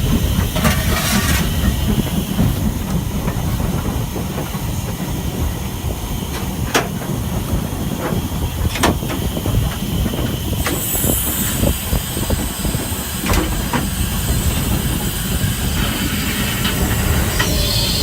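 Stanier 8F two-cylinder 2-8-0 steam locomotive on the move: a steady low rumble with scattered sharp clicks. A high steam hiss comes in about halfway through, with a second hiss near the end.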